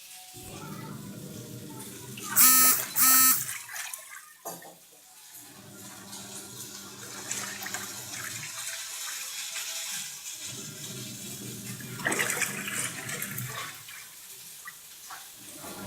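Godrej Eon+ automatic washing machine running with water rushing and churning in its drum and a steady low hum. A few seconds in, two short electronic beeps about half a second apart sound from it.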